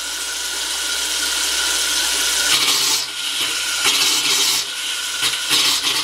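Bathroom sink faucet running with compressed air forced through the supply line, water splashing into the basin and spurting in irregular surges through the second half. The air is blowing the last water out of the pipes to winterize them.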